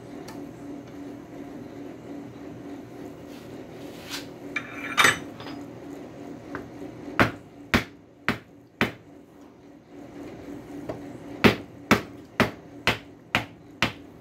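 Sharp hammer strikes in groups: a clatter about five seconds in, then four blows about half a second apart, then after a pause six more at about two a second, over a steady low hum.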